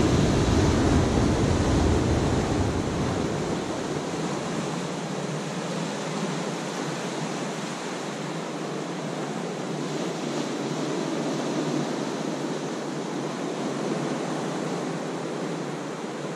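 Ocean surf breaking and washing over a rocky shore: a steady rush of water, fullest and deepest in the first few seconds as a wave breaks, then easing to a softer wash.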